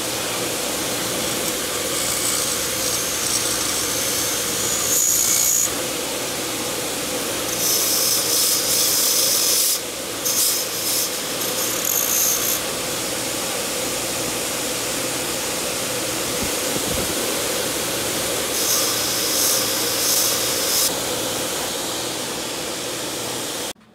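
A motor-driven yellow deburring wheel running steadily at high speed, with four spells of high hissing as metal pieces are pressed against it to take off burrs around drilled and tapped holes. The sound cuts off suddenly near the end.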